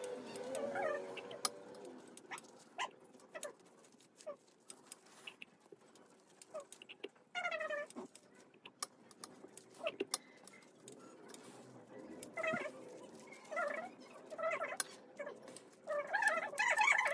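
A pet animal's short, pitched whining calls: one near the start, one about halfway through, then a string of short calls close together near the end. Between them are small clicks and rustles from a fringed foam sheet strip being handled.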